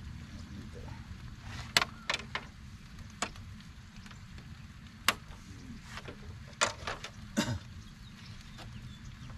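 Metal-framed folding camp table being unfolded, its frame and hinged legs giving a series of sharp, irregular clacks and knocks as they swing and lock into place.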